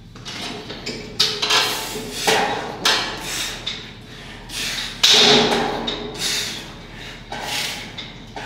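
Incline chest press machine clanking through a set of reps: a series of metal knocks, one every second or two, the loudest with a short ring.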